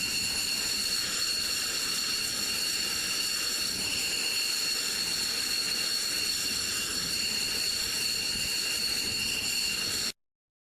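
Jet engine running steadily: a loud hiss with several high whining tones over it, cutting off abruptly near the end.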